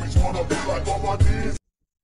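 Background music with a heavy bass beat and vocals, cutting off abruptly about one and a half seconds in.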